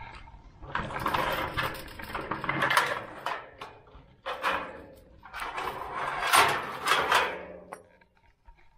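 Chain rattling against a tube-metal farm gate as it is unlocked and handled, in three loud noisy stretches, dying away near the end.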